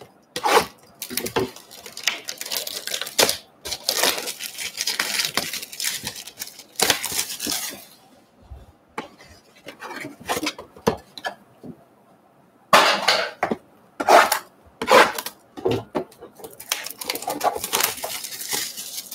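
Shrink-wrapped cardboard trading-card boxes handled and set down on a wooden tabletop: a string of knocks and clacks with stretches of rustling wrap.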